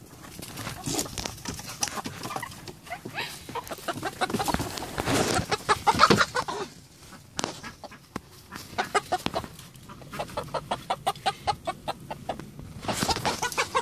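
Domestic hens clucking and squawking as they are chased, with a loud rough scuffle about halfway through and a run of fast, repeated clucks near the end.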